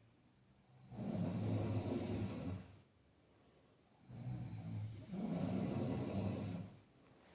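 A person snoring: two rough, buzzing snores a few seconds apart, the first about a second in and the second, longer one from about four seconds in, with quiet pauses between breaths.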